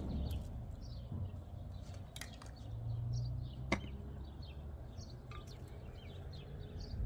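Small birds chirping over a steady low rumble, with one sharp click a little past halfway.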